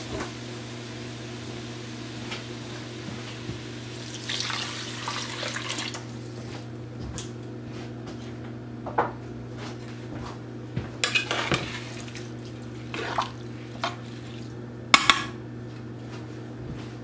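Water pouring for a couple of seconds as it is added to a pot of rice, then a metal spatula knocking and scraping against the pot in scattered clinks as the rice and water are stirred, the loudest knocks near the end. A steady low hum runs underneath.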